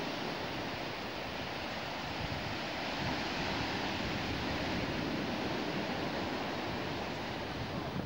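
Black Sea surf: waves breaking and washing up the shore in foam, a steady rushing noise.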